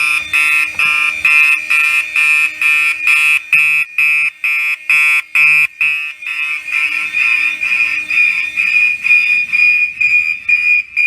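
Fire alarm sounding loudly under test: a harsh high-pitched tone pulsing rapidly, about three times a second. About halfway through the pulses run together into a more steady high tone, then become distinct again near the end.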